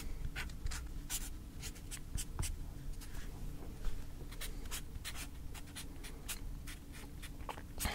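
Handwriting on a paper pad: a run of short, irregular scratching strokes.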